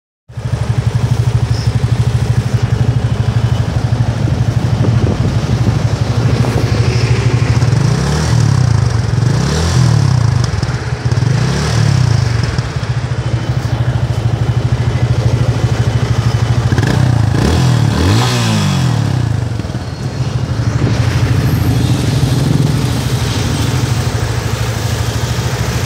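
Yamaha FZ25's 249 cc single-cylinder engine idling through its stock muffler, with several quick throttle blips in the middle that rise and fall in pitch.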